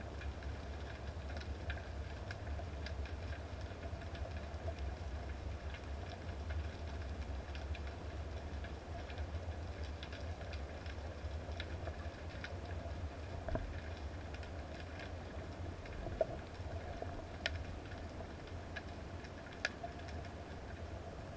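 Underwater ambience: a steady low rumble of water moving against the camera housing, with scattered sharp clicks and a few louder ones in the second half.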